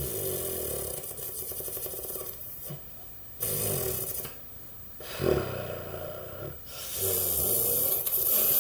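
A boy blowing and buzzing air through his mouth past a tiny Rubik's cube held against his cheek, in four rattling, breathy blasts. It is an attempt to make the cube sound like a lawnmower, which he says no longer works.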